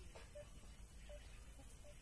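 Near silence: faint outdoor background with a low rumble and a few brief, faint, high notes and clicks.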